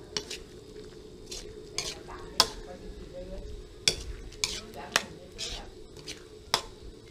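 Metal ladle scraping and knocking against an aluminium wok while stirring golden apple snails in a thick sauce, in irregular strokes about once a second.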